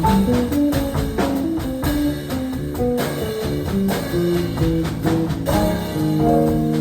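Jazz trio of piano, bass and drums playing live: a quick line of single notes over bass and drums, settling into held notes near the end.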